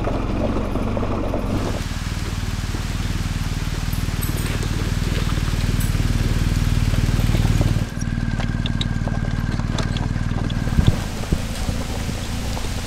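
BMW GS boxer-twin motorcycle engine running at low, steady revs as the bike rides slowly along a rough gravel track. A little after ten seconds in, the engine sound drops away as the bike moves off, leaving scattered small clicks.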